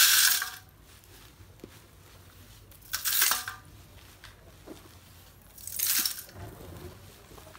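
Handfuls of roasted multani mitti (Fuller's earth) pieces dropped into a steel mesh sieve, rattling on the metal and against each other. Three short pours: at the start, about three seconds in and about six seconds in.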